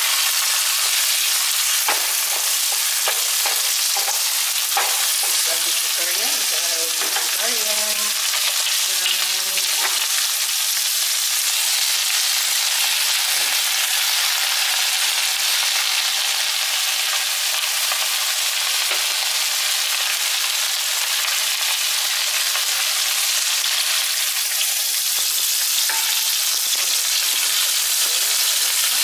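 Cabbage and Chinese cabbage sizzling with a steady hiss in a hot pan as they are stir-fried with a wooden spatula, with a few short clicks from the spatula in the first few seconds.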